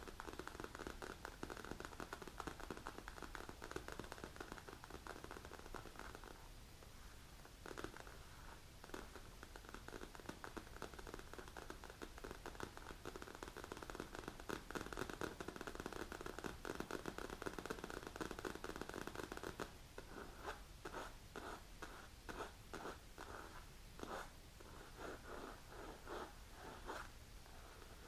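Long polished fingernails scratching over a padded black leather hand-rest cushion: a dense, continuous scratching. For the last several seconds it breaks into separate quick strokes, a few a second.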